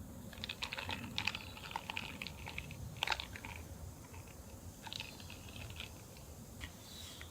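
Quick, irregular light clicks and clinks of small hard objects being handled, in two bursts: the first with a sharper click about three seconds in, the second shorter, around five seconds in.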